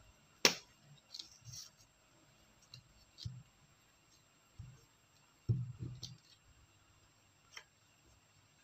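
Stationery being handled on a table: a sharp click about half a second in, then several soft knocks as small items are picked up and set down, and a small click near the end as a glue stick's cap comes off.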